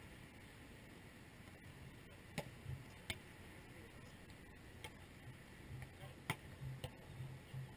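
A volleyball being struck by hands during a rally: several sharp taps a second or so apart, the loudest a little past six seconds in, over a faint steady hiss.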